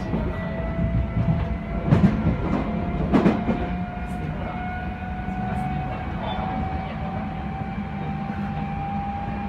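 Running sound inside an Odakyu 3000 series electric train car: the traction motors whine in one tone that rises slowly in pitch as the train gains speed, over a steady rumble. The wheels knock over rail joints about two and three seconds in.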